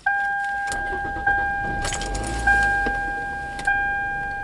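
Car's warning chime ringing about every 1.2 seconds, each chime a clear tone that fades before the next. A low rumble of the engine starting sits under it about halfway through.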